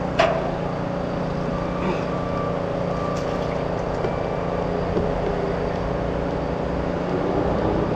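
Kawasaki SX-R 1500 stand-up jet ski's four-stroke four-cylinder engine idling steadily, with a short click just after the start.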